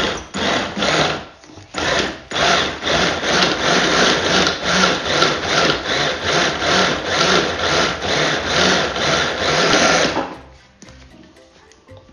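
Mini food processor with a hand-blender motor on a chopper bowl, chopping cubes of cold butter into flour. The motor runs in rapid pulses, about three a second, and stops about ten seconds in.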